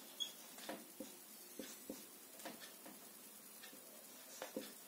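Marker pen writing on a whiteboard: faint, irregular taps and short strokes of the felt tip as a word is written.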